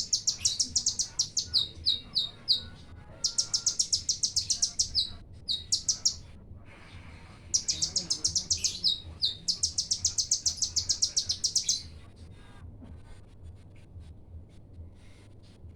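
Olive-backed sunbird (konin) singing its rapid 'bren' song: high notes repeated very fast in three long trilled runs, with short pauses between them. Only faint chips follow for the last few seconds.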